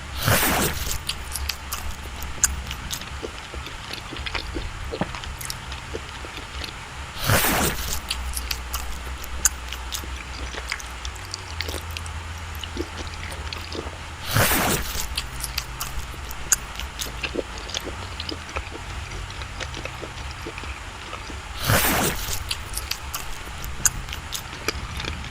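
Close-up chewing and wet mouth smacking of someone eating soft, creamy cake, with many small clicks. A louder rushing noise comes four times, evenly spaced about seven seconds apart.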